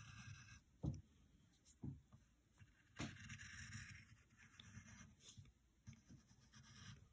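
Faint scratching of a pencil drawing long strokes on paper, with three soft thumps about a second apart near the start.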